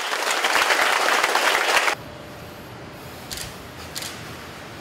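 A group clapping their hands in dense applause that cuts off abruptly about two seconds in, leaving quiet room sound with a couple of faint clicks.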